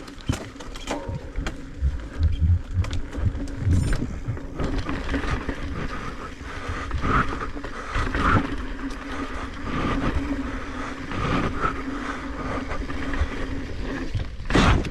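Mountain bike ridden fast down rocky singletrack: the tyres rumble over rock and dirt while the bike rattles and knocks over the bumps, with a steady whir through the middle stretch. One loud thump comes near the end.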